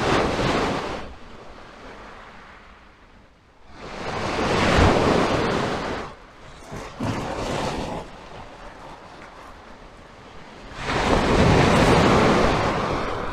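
Small waves breaking and washing up a shingle beach: three surges of surf noise a few seconds apart, each lasting a couple of seconds, with a smaller wash between the second and third.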